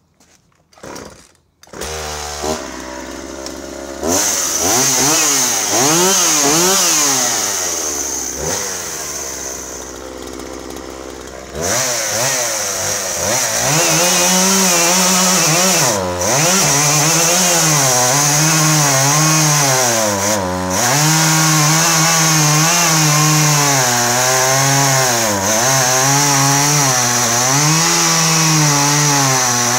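Husqvarna 137 two-stroke chainsaw pull-started, catching about two seconds in and running at fast idle, then revving up. From about 12 seconds in it is cutting into a log, its pitch dipping and recovering over and over under load.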